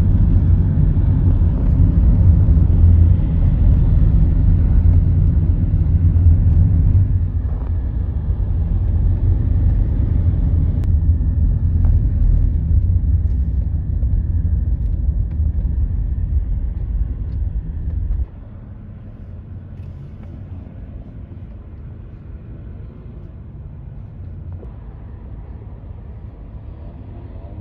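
Steady low rumble of a road vehicle in motion, which drops suddenly to a much quieter, even background noise about 18 seconds in.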